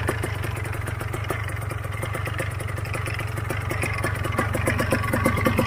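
An engine idling steadily, with a fast, even pulsing.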